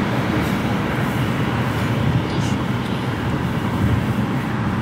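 Steady rushing road and wind noise of a car driving along, heard from inside.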